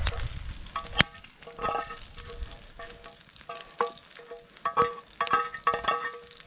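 A spatula scraping and tapping food out of a frying pan into a second pan, in about a dozen irregular strokes, each leaving the metal pan ringing briefly.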